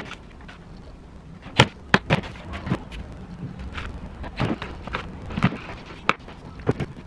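Scattered knocks and clatter of plywood bed-frame parts and tools being handled and set down on a wooden table, about a dozen sharp knocks at uneven intervals, the loudest about one and a half seconds in.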